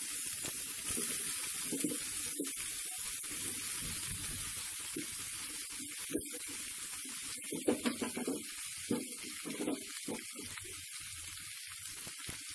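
Freshly chopped spinach sizzling in hot oil in a steel kadai, a steady hiss with a few faint ticks and knocks.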